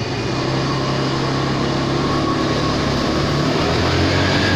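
Steady low mechanical hum with a fainter higher whine in an underground car park; the low tone drops slightly in pitch about three and a half seconds in.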